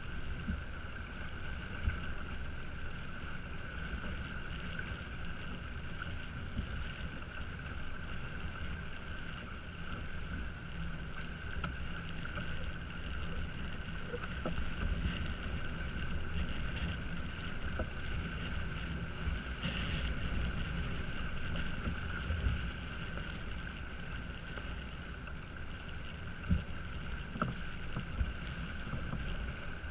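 Wind buffeting the camera microphone and water rushing past the hull of a small sailing yacht under sail, over a steady high hum. A few sharp knocks sound near the end.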